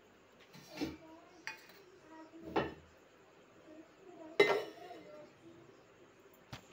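Steel kitchen bowls and utensils clinking and knocking against each other as ingredients are handled: five or so short, separate clinks, the loudest a little past the middle.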